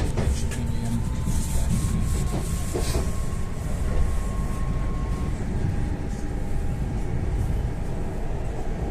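Ivolga 4.0 electric multiple-unit train running, heard from inside a carriage: a steady low rumble with a few knocks of the wheels in the first few seconds, and a faint thin whine that steps down in pitch about halfway through.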